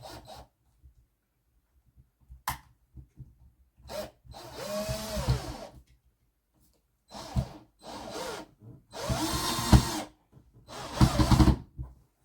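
A power drill-driver runs in four short bursts, its pitch rising and falling within each, as screws are driven in to fit a door handle. A couple of light clicks come before it.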